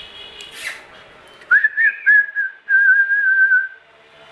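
A person whistling close to the microphone: a few short notes starting about a second and a half in, then one longer, slightly wavering note held for about a second.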